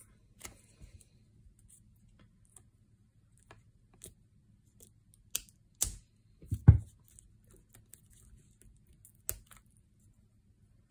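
Knife tip scratching and tapping at the shrink wrap on a cardboard card box: sparse light clicks, a few sharper taps, and one louder knock a little past halfway.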